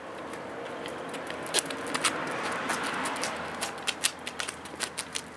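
A small dog's claws clicking irregularly on paving stones as it steps about, over a soft rush that swells in the middle.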